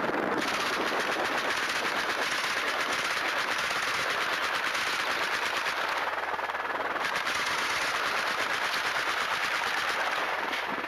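Automatic gunfire fired from a police helicopter, a fast, even rattle of shots that keeps going almost without a break.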